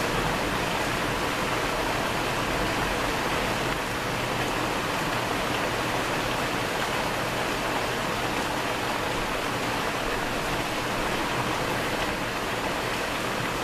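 Heavy rain falling steadily during a thunderstorm, an even, unbroken hiss with no thunder.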